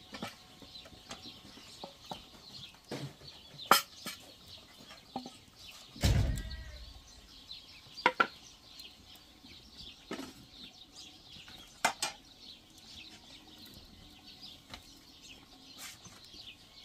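Glass and ceramic dishes clinking sharply on a table, about four times a few seconds apart, with a heavier thump about six seconds in. Faint bird calls in the background.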